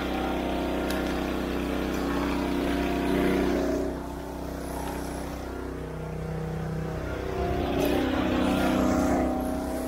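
Small gasoline engine of a log splitter running steadily. Its sound dips and changes for a few seconds in the middle, then comes back up.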